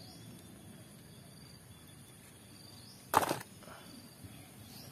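Quiet outdoor ambience with faint high chirps recurring about once a second, and one sharp knock about three seconds in as the muddy plastic toys are handled.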